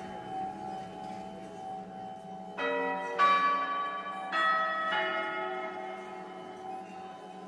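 Church bells being chimed, their clappers pulled by cords tied to them, so the bells ring out in turn at different pitches. The earlier notes hang and fade, then about four fresh strikes come in quick pairs a few seconds in, each left to ring on.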